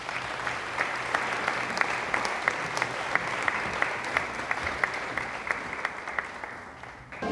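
Audience applauding: many hands clapping steadily, fading away near the end.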